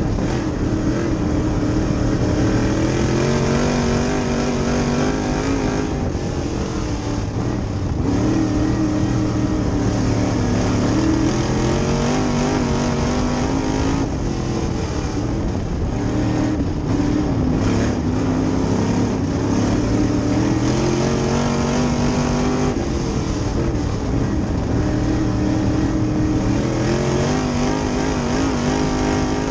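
Sportsman dirt late model race car's V8 engine, heard from inside the cockpit at racing speed. It revs up along the straights and falls off into the turns, rising and dropping in pitch several times.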